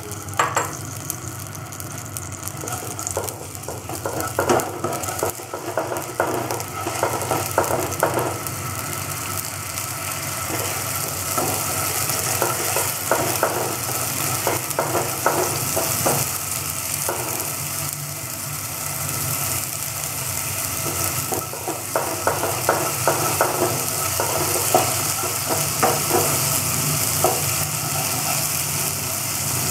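Ginger garlic paste sizzling in hot oil in a non-stick frying pan, stirred with a spatula that scrapes across the pan in runs of quick strokes. The sizzle grows louder over time, over a steady low hum.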